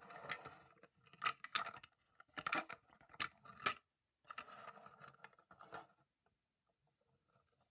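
A hard plastic toy figure being fitted into the seat of a small plastic toy car by hand: a run of light clicks, knocks and scrapes of plastic on plastic, dying away after about six seconds.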